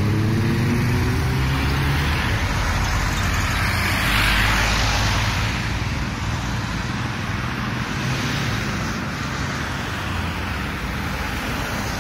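Road traffic noise: an engine's note drops and fades away in the first second, and a vehicle passes about four seconds in, with steady road noise after.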